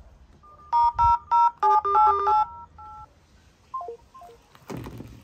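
Smartphone dial-pad keypad tones during a call: a quick run of about seven loud two-tone DTMF beeps, followed by a fainter tone pair. Then come two short falling three-note beeps as the call ends, and a few knocks near the end.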